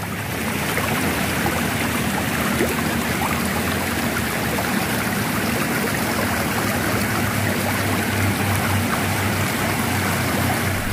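Steady rush of running water from an irrigation ditch beside rice paddies, with a faint low hum underneath.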